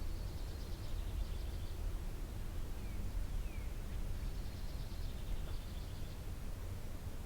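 A songbird sings the same short, high trilled phrase twice, a few seconds apart, with a couple of brief falling call notes in between. Under it runs a steady low rumble.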